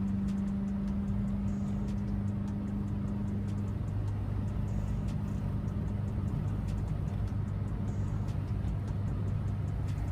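Mazdaspeed3's turbocharged 2.3-litre four-cylinder engine and exhaust droning steadily under way, the drone dropping in pitch about four seconds in, with light regular ticking over it.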